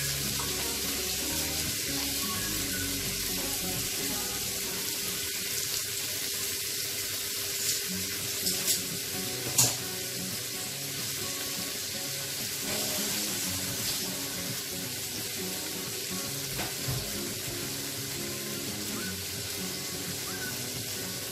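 Shrimp sizzling in melted butter on a hot sizzling plate: a steady frying hiss with a few sharp pops about eight to ten seconds in.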